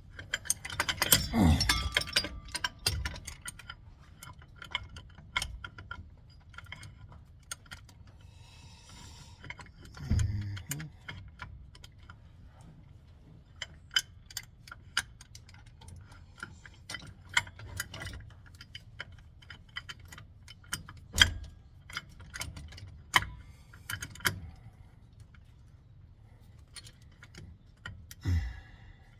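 Irregular sharp metallic clicks and clinks of bolts, sleeves and hand tools being handled while a brake caliper is fitted, with a few duller knocks about a second in, about ten seconds in and near the end.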